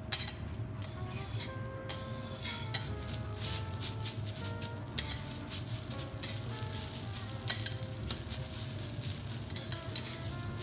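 Two steel teppanyaki spatulas chopping and scraping cooked rice and fried garlic chips against a hot steel griddle for garlic rice: many quick metal-on-metal clicks and scrapes over a light sizzle.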